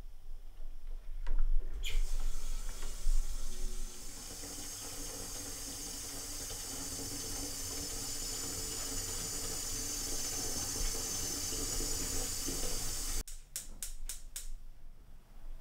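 Kitchen faucet running water into a pot in a stainless steel sink. It starts about two seconds in, is louder at first, then runs as a steady hiss and is shut off abruptly near the end, followed by a few light clicks.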